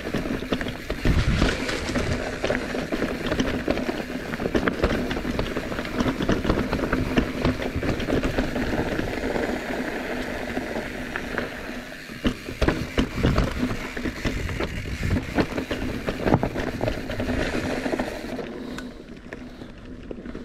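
Bicycle rolling over a rough trail: tyres crunching over gravel and rock, with constant small knocks and rattles from the bike. It eases off over the last couple of seconds.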